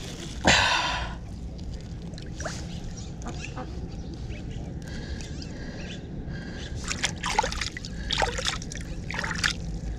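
Shallow water splashing as a carp is released by hand at the pond's edge: a burst of splashing about half a second in, quieter trickling, then a run of short splashes near the end.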